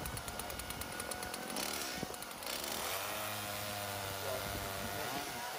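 Chainsaw running, its pitch changing about halfway through.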